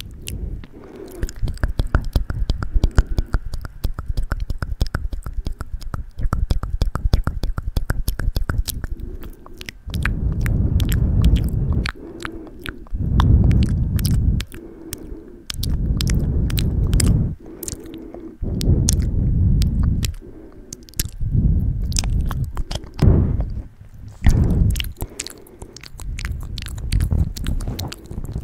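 Close-miked ASMR wet mouth sounds: rapid lip and tongue clicks and smacks right at the microphone. From about ten seconds in they alternate with muffled low rumbling in stretches of one to two seconds, as hands are cupped around the microphone.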